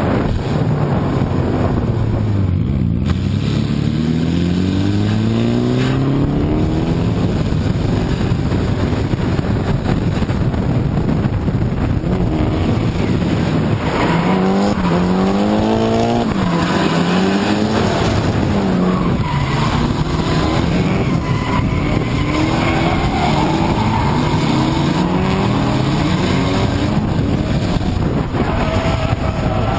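Drift car engine revving hard, its revs climbing and dropping again and again over several seconds at a time, with tyres squealing and skidding as the car slides, heard from on board the car.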